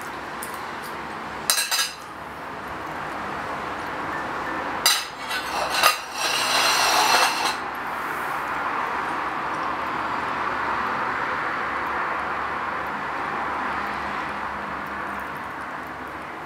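Metal fork and ceramic plate clinking: a couple of sharp clinks about two seconds in, then a cluster of clatter from about five to seven seconds as the plate and fork are pushed aside. A steady background noise runs underneath.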